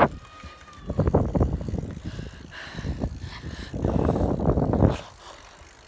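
Wind buffeting the phone's microphone during a fast bicycle ride, in two gusty spells of low rumble. The second spell dies away about five seconds in.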